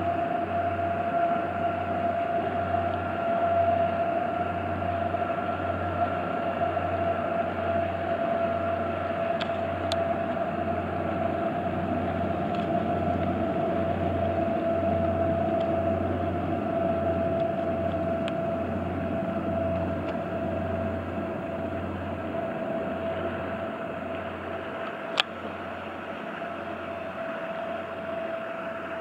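Twin-hulled waterbus fast ferry passing under power: a steady engine drone with a high whine and a low throb that beats a little more than once a second, fading as the boat moves away. A single sharp click about 25 seconds in.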